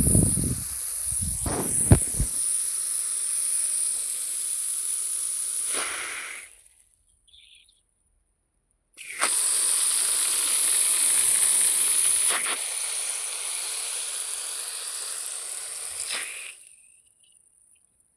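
Water rushing out under pressure with a strong, steady hiss, in two stretches of several seconds that start and stop abruptly, with a few low thumps in the first couple of seconds.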